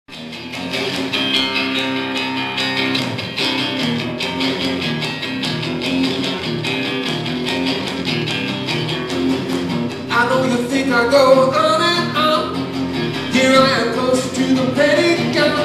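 Acoustic guitar strummed hard in a steady rhythm as a song's intro; a man's singing voice comes in about ten seconds in over the strumming.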